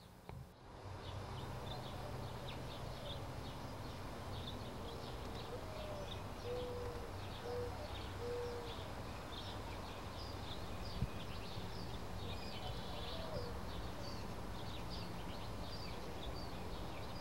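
Birds calling outdoors: rapid high chirps throughout and a few short, low cooing notes in the middle, over a steady low rumble. A single brief knock about two-thirds of the way through.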